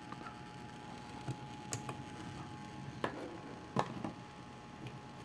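A few light, scattered clicks and knocks as a hair iron's power cord and plug are handled at a power strip, over a faint steady hum.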